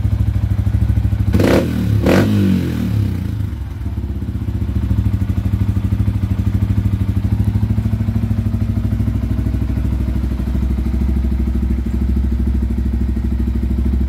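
Yamaha Sniper 155's single-cylinder engine running through an aftermarket Replica Pro GP-type exhaust, with a steady idle pulse. Two sharp bursts come about a second and a half to two seconds in, then it settles back to a steady idle.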